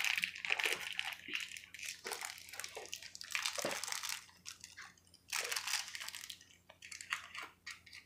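Shiny foil-and-plastic wrapper of a small toy packet crinkling and rustling in fits and starts as fingers pick it open.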